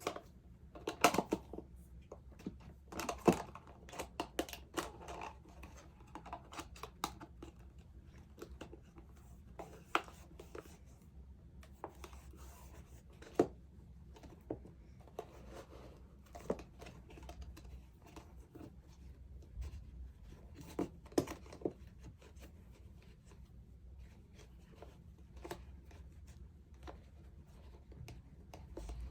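Hands working small plastic containers and macrame cord: scattered sharp clicks, taps and short rustles, some in quick clusters.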